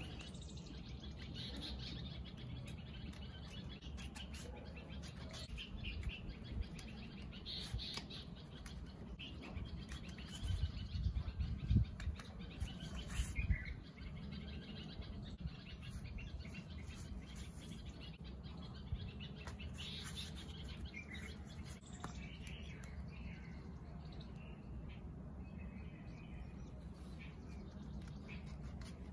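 Birds chirping faintly and intermittently, with a few dull handling knocks around the middle.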